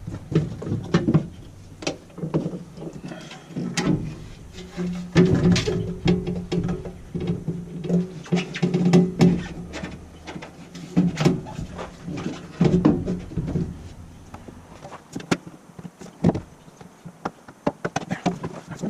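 Irregular metal clicks, knocks and rattles from the door latch mechanism and linkage being worked back into place inside a Ford L8000 truck door. A low steady hum sounds through the middle stretch.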